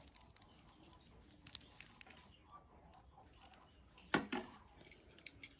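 Faint, scattered clicks and light taps from a wristwatch and its strap clasp being handled, with a sharper click about four seconds in.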